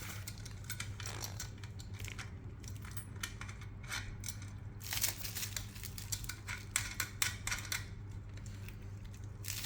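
Light, irregular metallic clicks and taps as a nut is screwed onto the axle of a balance bike's wheel, over a steady low hum.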